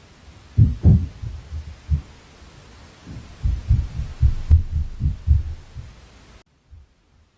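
Inter-floor impact noise from the flat above: dull low thuds carried through the ceiling, in two quick irregular runs of several thumps each. The background hiss cuts off abruptly near the end.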